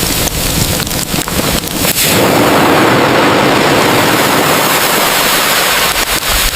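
Loud, steady rushing wind noise, with a run of sharp crackles through the first two seconds.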